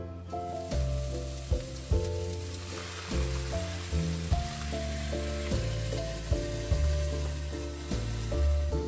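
Cod pieces sizzling steadily in a frying pan with a little oil and white wine, starting a moment in. Background music with sustained low notes plays under the sizzle.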